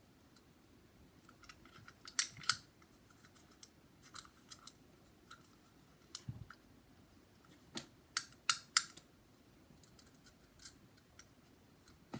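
Sharp plastic clicks of a fidget toy being worked by hand. They come in short bursts of two to four clicks, the loudest about two seconds in and again about eight seconds in, with fainter single clicks between.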